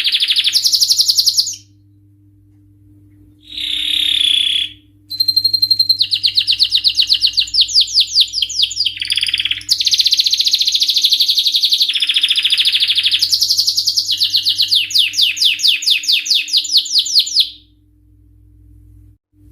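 Male domestic canary singing: a series of fast trills of rapidly repeated notes, changing from one trill to the next, with a brief pause about two seconds in, and the song stopping a couple of seconds before the end.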